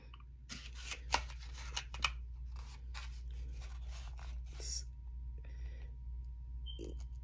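Handling noise from a plate of food and a plastic fork: a run of sharp scrapes, clicks and crackles for about four seconds, then quieter, over a steady low hum.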